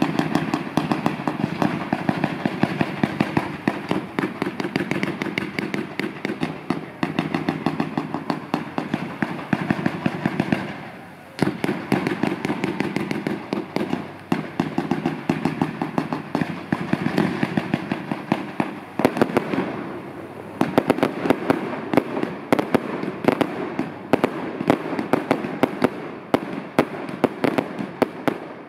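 Fireworks display: a dense barrage of rapid bangs and crackling from shells rising and bursting. It eases briefly about eleven seconds in, then builds again.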